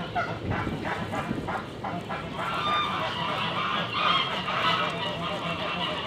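Farmyard birds calling, many short overlapping calls that grow busier and louder after about two seconds, over a low steady hum.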